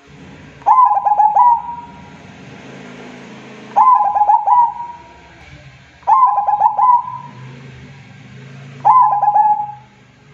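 Zebra dove (perkutut) singing its rhythmic coo: four loud phrases of quick repeated notes, each about a second long, a few seconds apart, over a faint low drone.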